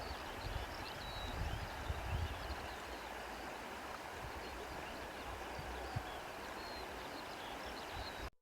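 Outdoor nature ambience: a faint, steady rushing hiss with brief high chirps of distant birds and an uneven low rumble. It cuts off abruptly just at the end.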